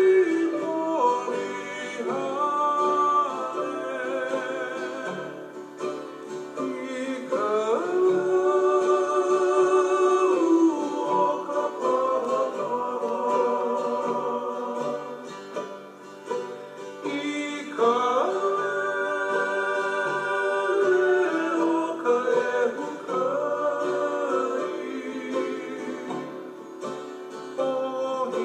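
Background music: a song with a singing voice holding long, wavering notes over plucked string accompaniment.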